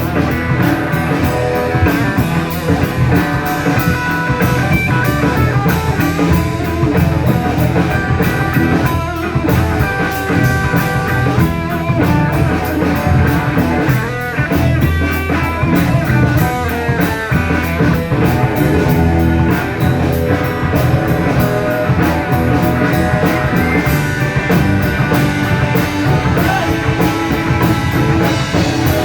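Live rock band playing an instrumental passage: electric guitar over bass and drum kit, with a steady beat.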